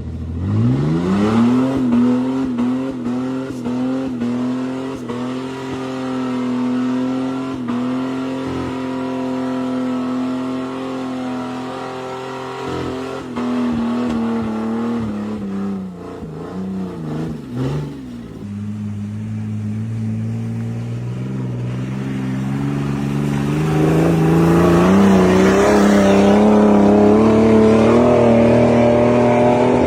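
An off-road 4x4's engine revving hard: it climbs quickly at the start and holds at high revs, sags and wavers about halfway through, then builds again to its loudest run near the end, as the vehicle works under heavy load.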